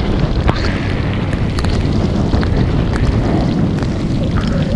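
Strong wind buffeting the camera microphone as a rumbling rush over choppy water in a rain shower, with scattered sharp ticks across it, typical of raindrops striking the camera.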